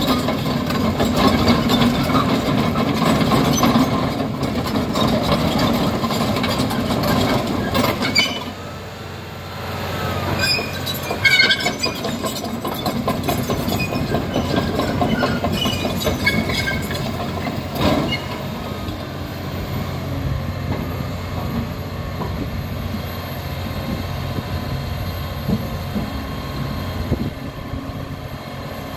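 Caterpillar D6N LGP crawler dozer driving and turning on concrete: its six-cylinder diesel engine running, with the steel tracks clanking and squealing. The engine drops back sharply about eight seconds in. A few high track squeals and knocks follow a few seconds later, and after that the machine runs more quietly.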